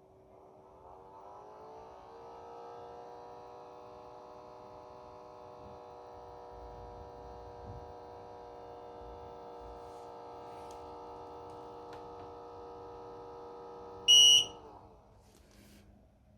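Xiaomi Mi Air Purifier 3H running with an abnormal tonal buzzing hum, rising in pitch over the first couple of seconds and then holding steady. The owner suspects the particle sensor's fan, or vibration at the joint between the sensor and the body. About fourteen seconds in there is a loud short beep, and the hum then dies away.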